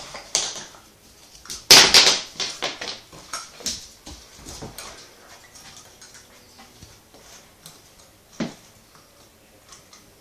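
A Bedlington terrier rooting at its fabric dog bed: a run of short scratching and rustling noises, loudest about two seconds in, thinning out as the dog settles down. One sharp knock about eight seconds in.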